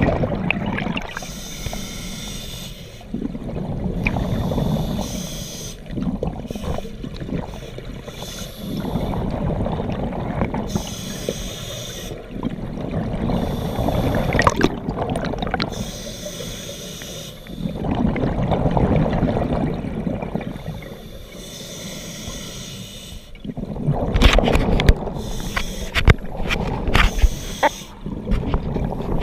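Scuba diver breathing through an open-circuit regulator underwater: a hiss on each inhale, then a rumbling burst of bubbles on each exhale, in a slow cycle about every four to five seconds.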